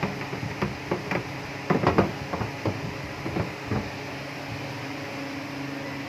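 Washing machine humming steadily, with a run of sharp clicks and knocks over the first four seconds, the loudest cluster about two seconds in.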